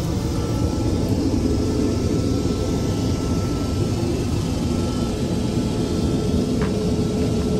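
Steady in-flight cabin noise of a Boeing 787 airliner heard from inside its lavatory: an even low rush with a faint steady hum, and a small click near the end.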